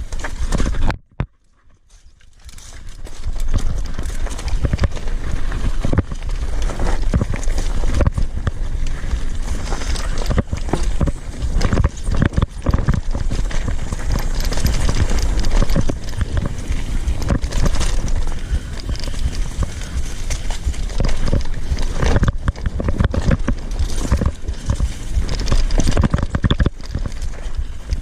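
Mountain bike clattering down a rough downhill trail, irregular knocks and rattles as the tyres hit rocks and roots, over a steady low rumble. The sound drops out for about a second near the start, then the clatter resumes.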